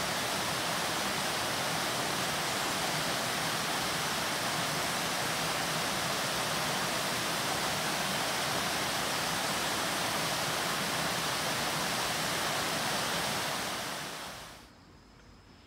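Mountain stream pouring over a small concrete weir: a steady, loud rush of water. It fades out about fourteen seconds in.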